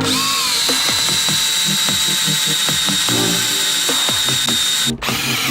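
Power drill boring small rivet holes through the metal of a handbrake mounting bracket: a steady high whine that spins up at the start, cuts out briefly near the end and starts again.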